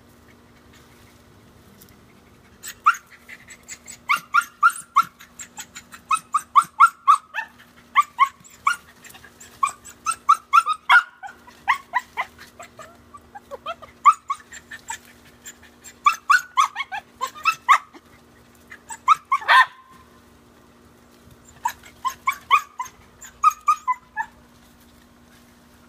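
Dachshund barking excitedly in quick runs of high, sharp yaps at a lizard hidden in a shrub. The barking starts a couple of seconds in and pauses briefly near the end before resuming.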